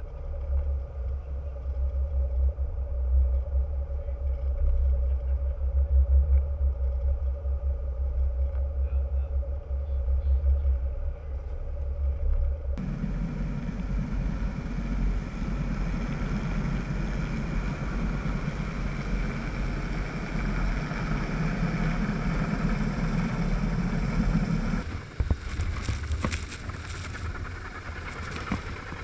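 Inflatable boat's engine running with a steady low rumble as it holds near the platform. The sound changes abruptly about 13 s in and again near the end. In the last few seconds the boat is running at speed, with wind buffeting the microphone.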